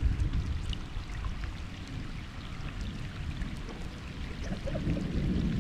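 Wind rumbling on the microphone by open lake water, with light water sounds and a few faint ticks.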